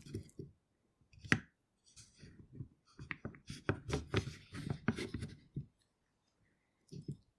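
Egg slicer cutting hard-boiled eggs: clicks and scrapes of the slicer and its wires. A sharp click comes about a second in, then a busy run of clicks and scrapes from about three to five and a half seconds.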